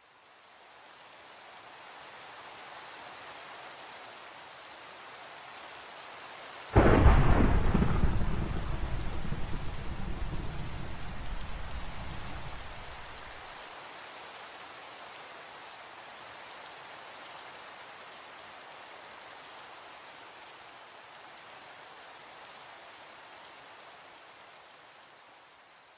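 Steady rain fades in. About seven seconds in, a sudden loud thunderclap rumbles on for about six seconds before dying away, and the rain fades out near the end.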